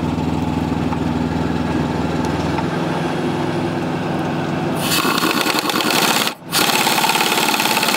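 Pneumatic impact wrench hammering at a greasy motor-mount through-bolt nut, in two loud bursts starting about five seconds in, with a short break just after six seconds. Before that, a steady low mechanical hum.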